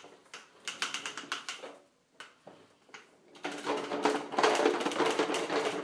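Small red toy wagon with wooden slat sides rolling over a tile floor, its wheels and body rattling in quick clicks. The rattle comes in two spells: a shorter one at first, then, after a lull, a longer, louder one from about three and a half seconds in.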